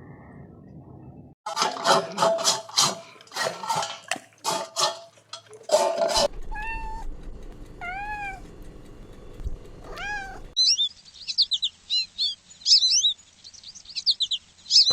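Animal calls in three separate cut clips: a quick run of pitched calls, then a few single arched, mewing calls, then rapid high chirps.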